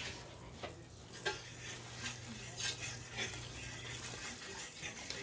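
Faint sizzling of an oil-and-flour roux cooking, with a kitchen utensil scraping and tapping in short strokes every half second or so.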